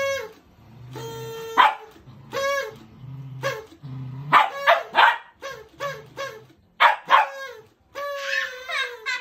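A party blower tooted again and again in short buzzy notes, and a dog barking back at it, with several sharp barks in the second half.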